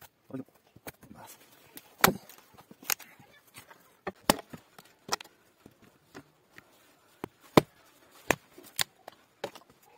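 Axe chopping into a log, splitting long splinters from it: a string of sharp, irregular strikes, about a dozen, with some much louder than others.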